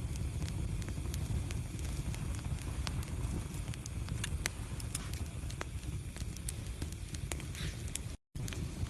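Wood fire burning in a fireplace: a steady low rumble of flames with sharp, irregular crackles and pops of burning logs. The sound cuts out for a split second near the end.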